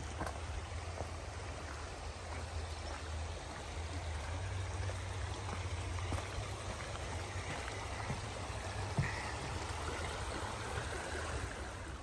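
Shallow rocky mountain creek running steadily over stones, an even rushing of water.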